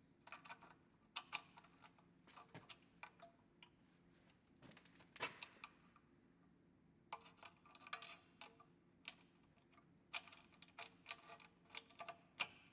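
Faint metallic clicking and ticking in several short clusters as the steel parts of a hand-made pistol grip wrench's bevel-gear mechanism are turned and handled during a dry fit.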